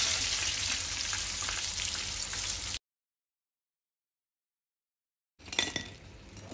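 Chicken nuggets sizzling in hot oil in a kadhai, stirred and lifted with a perforated steel spoon; the sizzle cuts off suddenly a little under three seconds in. Near the end, one short knock.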